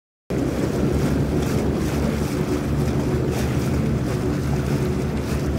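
Outboard motor of a small speedboat running steadily under way, with wind buffeting the microphone.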